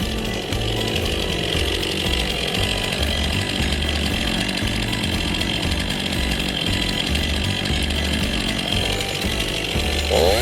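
Two-stroke chainsaw cutting through a log, running steadily under load; right at the end the engine revs up sharply.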